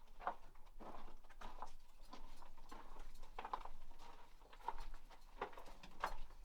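Footsteps crunching on loose rock and gravel in a mine tunnel, an irregular walking pace of short crunches about every half second.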